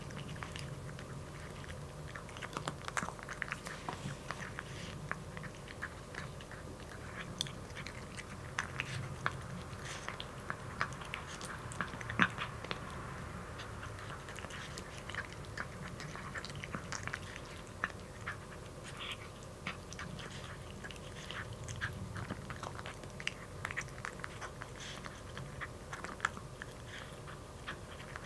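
A kitten eating dry kibble from a bowl: a continuous run of irregular crisp crunches and clicks as it chews, the loudest crunch about twelve seconds in.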